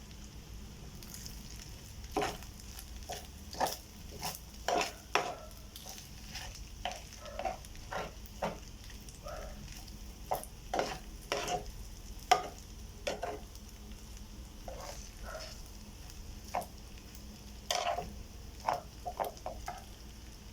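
Rice being stir-fried in a pan: a spatula scrapes and knocks against the pan at an irregular pace over a steady sizzle.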